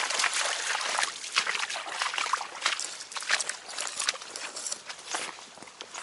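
Golden retrievers pushing through tall grass and brush, making a dense run of crackling rustles and footfalls.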